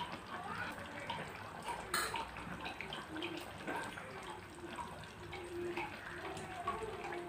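A metal spoon stirring a thick beef and potato curry in a steel pan: wet squelching of the gravy with scattered light clicks of the spoon against the pan, one sharper click about two seconds in.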